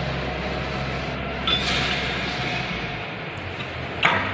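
Steel parts of a conical twin-screw extruder's splined screw shafts and spline sleeves being handled: a brief metallic scrape about a second and a half in, and a single sharp metal clink near the end. A steady low hum runs underneath.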